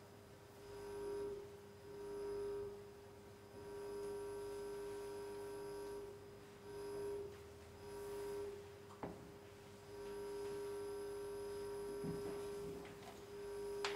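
Electronic drone performance: a steady, pure tone with faint overtones, like a tuning fork, swelling and fading in phrases a second or two long. A few soft clicks, with a sharp one near the end.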